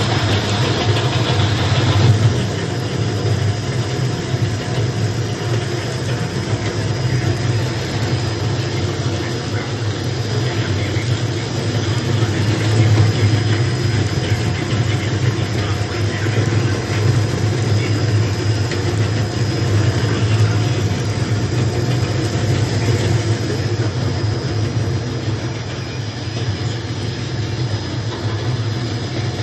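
Industrial fishing-net shredder running with a steady low hum as its toothed cutter shafts chew through nylon fishing net.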